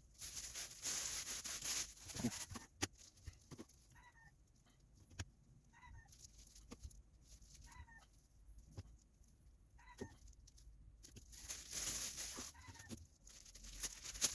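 Pieces of plastic bag crinkling as they are wrapped around stripper-coated metal reel parts, in two spells, at the start and again near the end, with scattered sharp clicks of handling. Between them, short pitched calls repeat about every two seconds in the background.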